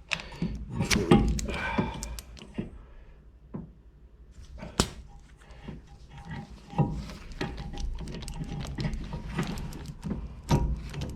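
Metal clicks, knocks and scrapes of a brake caliper rewind tool being worked against a rear caliper piston, trying to push it back. A man grunts with effort in the first couple of seconds, and a sharp knock comes near the middle.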